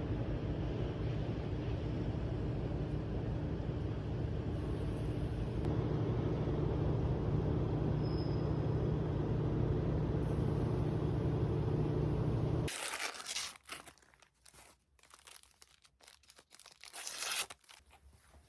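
A steady mechanical drone that cuts off suddenly about 13 seconds in, followed by faint crinkling and small clicks.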